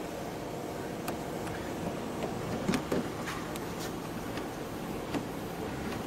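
Freshly cut metal key blade going into and turning in a BMW car door's lock cylinder: a series of small clicks and scrapes, the loudest a cluster a little under three seconds in, over steady outdoor background noise.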